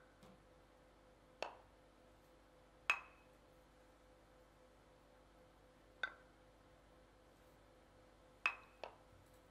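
Wooden mortars struck with pestles as percussion: sparse single knocks of different pitches, each with a brief ring, five in all, the last two in quick succession.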